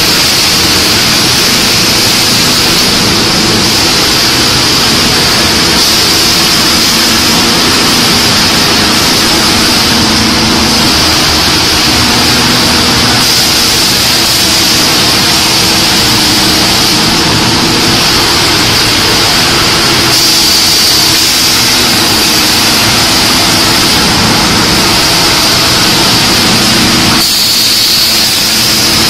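Particle board sanding line machinery running: a loud, steady industrial din with a constant high hiss over a low hum.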